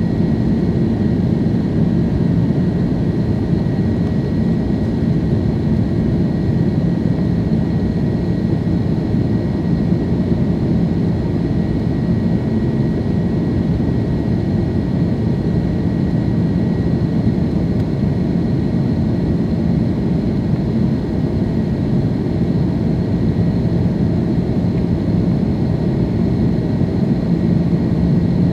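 Airbus A330-300's General Electric turbofan engines and airflow heard from inside the cabin in the climb after takeoff: a steady low hum with faint high whining tones, unchanging throughout.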